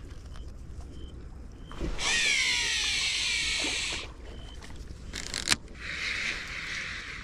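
Fishing reel during a cast: line pays out off the spinning spool in a loud two-second whir whose pitch falls as the spool slows, then stops abruptly. A sharp click comes about a second and a half later.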